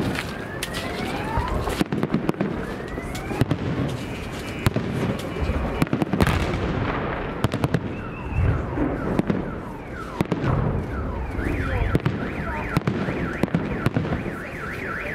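Fireworks display: repeated booming shell bursts and crackling, with two rising whistles of shells in the first few seconds. About eleven seconds in, a warbling alarm siren, like a car alarm set off by the bangs, starts up and keeps going.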